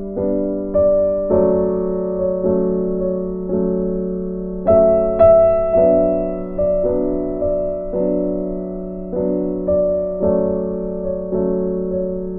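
Soft background piano music: slow chords struck about once a second, each ringing and fading before the next.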